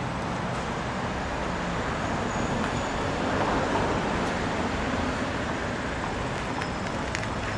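Steady traffic noise, a little louder around the middle of the stretch.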